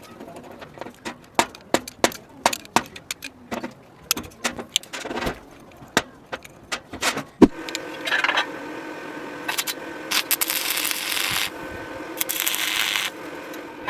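Small metal parts clinking and tapping, a few sharp clicks a second. About halfway through, a small motor starts running steadily, with two long bursts of hiss over it.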